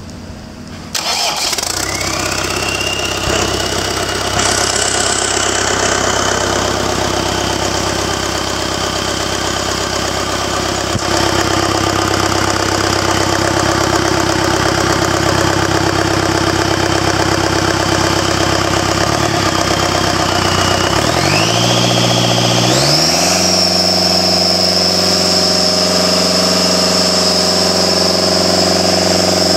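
Deutz BF4M2012C four-cylinder turbocharged diesel engine starting about a second in, then running steadily with a high whine that rises and levels off. Near the end it is revved up in two steps and held at a higher speed, with the whine climbing higher.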